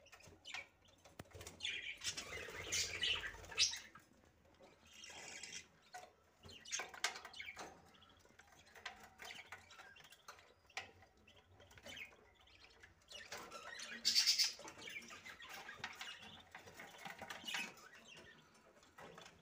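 Budgerigars chirping and chattering in irregular bursts, with a louder burst about fourteen seconds in.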